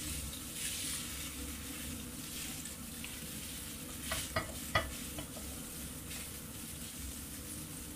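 Spaghetti and shredded king oyster mushrooms sizzling gently in a frying pan while being stirred and tossed with a spatula. A few light clicks of the spatula against the pan about four to five seconds in.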